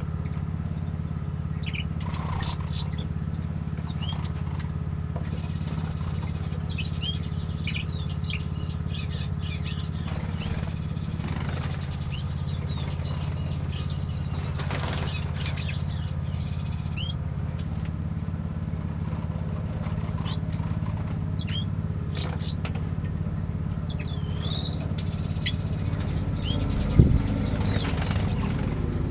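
Small aviary birds giving short, high chirps scattered through, over a steady low hum. A single knock sounds near the end.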